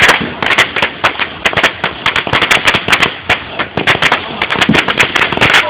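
Consumer fireworks going off: a rapid, irregular crackle of many sharp firecracker bangs, several a second.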